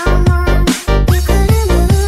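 Budots electronic dance remix music with a heavy, steady bass beat and synth notes that swoop upward in pitch.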